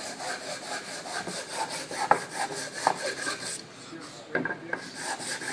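Sandpaper on a hand-held sanding block rubbing back and forth along the concave cove cut of a wooden board for an ogee foot, in quick, even strokes. It pauses briefly about three and a half seconds in, then resumes.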